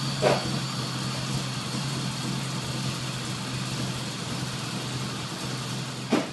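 BMW E21's engine idling steadily at an even pitch, with two short sharp knocks, one just after the start and one near the end.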